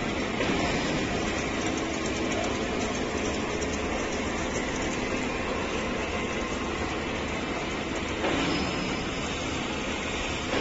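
Steady mechanical din of food-processing plant machinery running, with no clear rhythm.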